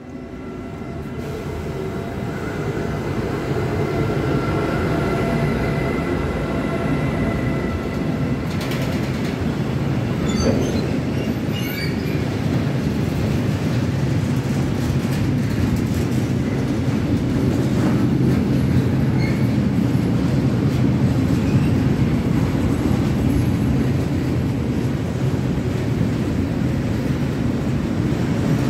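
A Siemens Vectron electric locomotive approaches with a steady high whine, then its long freight train of tank wagons rolls past with a loud, steady rumble and wheel clatter. Brief wheel squeaks come about ten seconds in.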